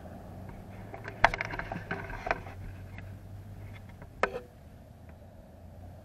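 A vehicle engine idles steadily with a low hum. A cluster of sharp clicks and knocks comes about a second in, and one more sharp knock follows a little after four seconds.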